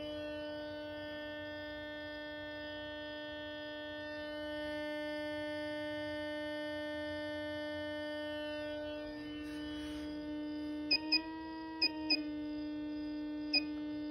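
Ferrite-core copper coil driven by a 300 Hz square wave, giving a steady buzzing tone rich in overtones. From about two-thirds of the way in, a few short key clicks from the function generator as its frequency is stepped, the pitch shifting slightly between them.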